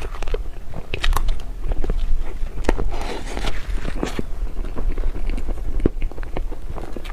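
Close-up eating sounds: crisp bites and crunchy chewing of a dessert, many short crackles with a denser stretch of crunching about three seconds in.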